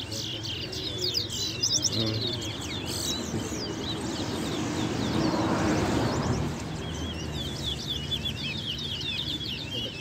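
Caged towa-towa (chestnut-bellied seed-finches) singing rapid, twittering phrases of quick down-slurred chirps in a song-count contest. The song comes in bursts, fading about the middle and picking up again near the end.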